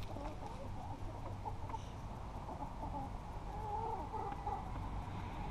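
Chickens clucking, short scattered calls, over a steady low rumble.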